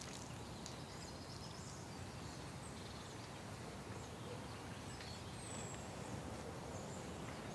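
Quiet outdoor ambience with a steady faint hiss and a few faint, high bird chirps scattered through it.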